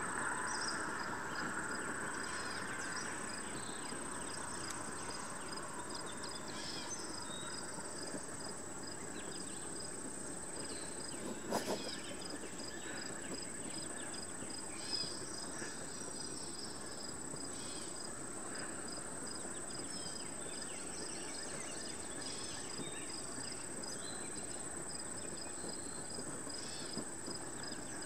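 Insects in summer vegetation: one keeps up a steady, high-pitched trill while another chirps in an even pulse, about two a second, over a low outdoor background hiss. A brief knock sounds a little under halfway through.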